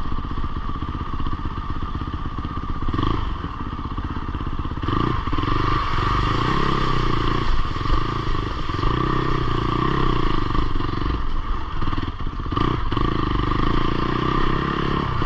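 Fantic Caballero Rally 500's single-cylinder four-stroke engine running as the bike is ridden off, its revs rising and falling.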